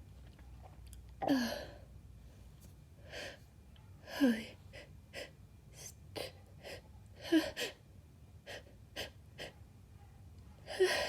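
A woman's sneezing fit: four forceful, wet sneezes about three seconds apart, each ending in a voiced 'choo' that falls in pitch, the last right at the end. Between them come short sharp gasping breaths and sniffs. The fit was brought on on purpose, and she calls these sneezes intense.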